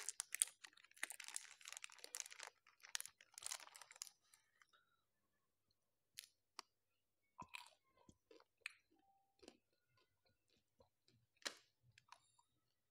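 Faint crunching and chewing of a chocolate-coated ice-cream bar: separate crisp cracks of the hard coating as it is bitten, the strongest near the end. A soft plastic-wrapper rustle fades out in the first few seconds.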